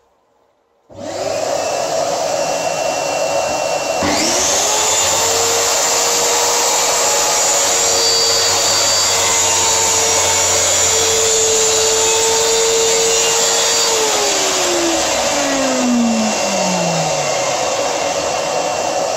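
A shop vacuum hooked to the saw's dust port switches on about a second in and runs throughout. About four seconds in, a Titan plunge saw's motor spins up with a rising whine and runs steadily for about ten seconds while making a shallow 2 mm scribe cut along its track through plywood. It then winds down with a falling whine once released.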